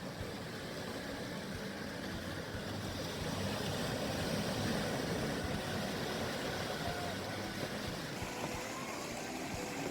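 Sea waves breaking and washing on a beach: a steady rushing surf that swells louder for a few seconds midway.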